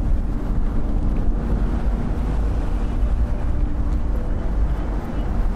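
Steady low rumble of city traffic, with a faint engine hum and wind on the microphone.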